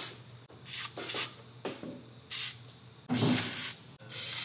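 Aerosol lubricant can hissing in about five or six short bursts, the longest about three seconds in, as lube is sprayed onto go-kart suspension pivots and shock mounts to quiet their squeaking.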